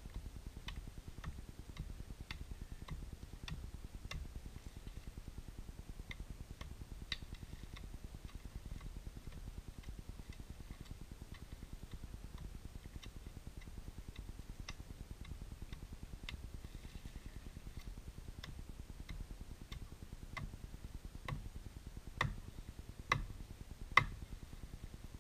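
Dry wood of a dead, uprooted apricot tree cracking and snapping as its twigs and branches are broken off by hand. Scattered small clicks, then a few louder sharp cracks near the end.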